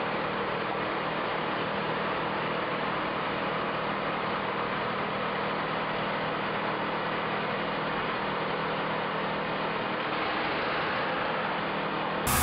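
Steady drone of a coal-mine roof-bolting machine running: an even, unbroken noise with a low hum beneath it.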